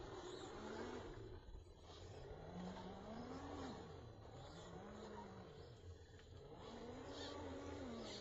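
Scale RC crawler's electric motor and gear drive whining, the pitch rising and falling several times as the throttle is worked while it crawls over dirt and through shallow water.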